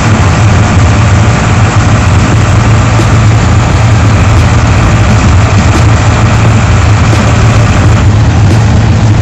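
Diesel engine of a Mercedes-Benz LO-812 bus running steadily as the bus drives along, heard from inside the cabin as a loud, even low drone with road noise.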